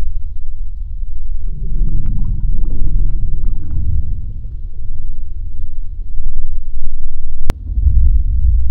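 Loud, deep rumble, its level swelling and falling, with a single sharp click about seven and a half seconds in.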